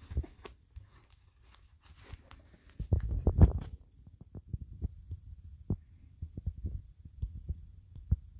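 Handling noise: irregular low thumps and rubbing as a sneaker is held and fingered right up against the phone. There are a few sharper clicks at the start and a louder run of thumps about three seconds in.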